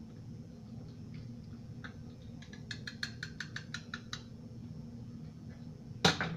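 Handling sounds from injecting a chicken with a plastic marinade injector: a quick run of light clicks about two and a half seconds in, then a single loud knock near the end, over a steady low hum.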